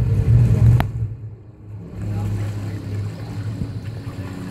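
Boat's outboard motor running steadily, with a sharp click a little under a second in; the sound drops away briefly, then the motor hum returns at a lower level.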